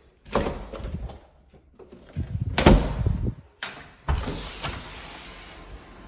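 A panelled interior door being handled and opened: a run of knocks, clunks and rattles over about four seconds, loudest about halfway. It gives way to a steady hiss of background noise.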